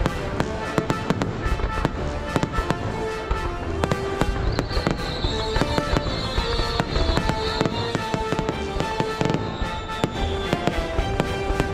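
Fireworks going off in rapid, overlapping bangs and crackles, several a second, with background music playing over them.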